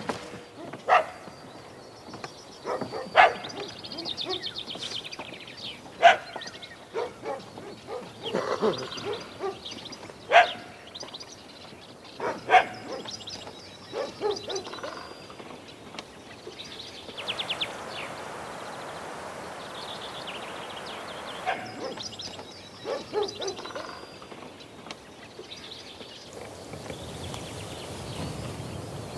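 A dog barking in single barks every two or three seconds, mostly in the first half, with birds chirping.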